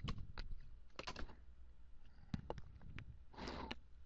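Faint, irregular keystrokes on a computer keyboard as a few characters are typed.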